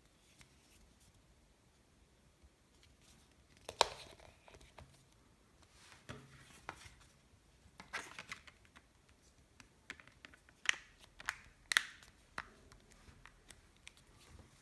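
An LG G4's battery being dropped into the phone and its leather back cover pressed and snapped on by hand: a scattering of sharp plastic clicks and snaps with light scraping between them, the loudest click about four seconds in and a quick run of snaps near the end as the cover's clips engage.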